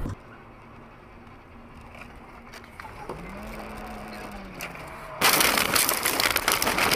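Low road noise from inside a car, then about five seconds in a sudden loud rush of crashing, crackling noise lasting under two seconds as the skidding car leaves the road and ploughs into snow.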